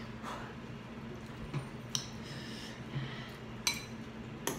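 Metal forks clinking and scraping against glass bowls while noodles are twirled and stirred: a few light, separate clinks spread out, over a faint steady low hum.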